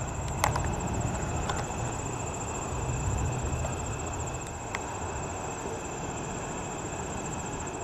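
Crickets trilling steadily in a high, pulsing chorus over a low continuous rumble, with a couple of brief sharp clicks.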